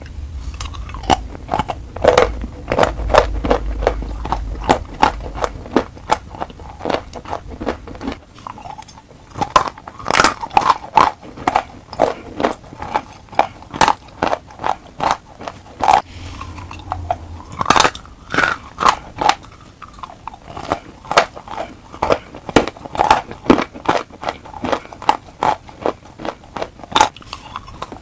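Close-miked crunching of dry chalk chunks being bitten and chewed. There are many sharp crunches, two or three a second, in uneven runs with brief pauses.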